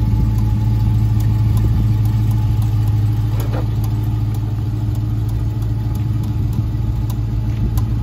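The 6.4-litre HEMI V8 of a 2021 Dodge Charger Scat Pack running steadily: an even low engine hum with faint light ticks over it.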